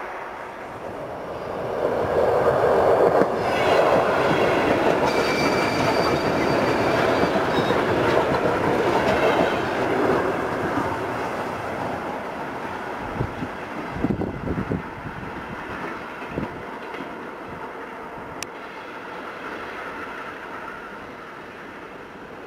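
Suburban electric train passing at speed: a loud rush of wheel and motor noise with a thin high whine in the middle, loudest from about two to ten seconds in, then fading as it draws away.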